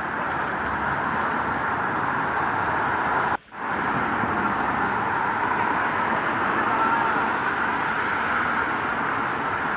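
Steady rain mixed with road traffic noise. The sound drops out for a split second a little over three seconds in, then resumes.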